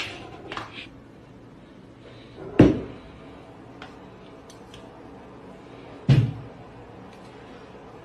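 Dull thumps of things knocked down on a tabletop: one at the start, a louder one about two and a half seconds in and another about six seconds in, with a few light clicks of things being handled in between.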